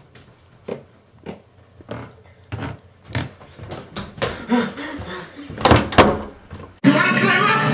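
Footsteps on carpeted stairs, a dull knock about every half second to second, then two loud knocks from a wooden interior door being handled. Music starts suddenly near the end.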